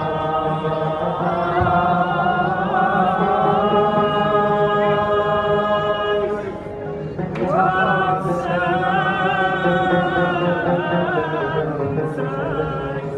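Men singing a slow chant in long held, slightly wavering notes; the line breaks off about six and a half seconds in, then a rising note opens another long held phrase.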